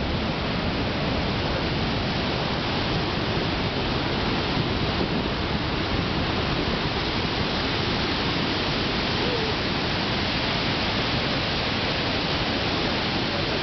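Steady rush of the Devil's Throat of Iguazu Falls heard up close, a massive waterfall pouring into its gorge: an even, unbroken noise with no let-up.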